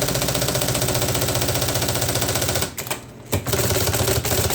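IBM Selectric I electric typewriter typing a rapid, even run of strokes over its motor's steady hum, running smoothly on a timing belt re-grooved to fit. The run breaks off for under a second about two-thirds of the way through, with one sharp stroke in the pause, then carries on.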